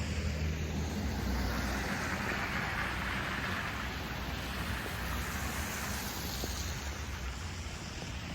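Wind buffeting the microphone in a snowstorm, with a steady hiss that swells for a couple of seconds in the middle and then fades.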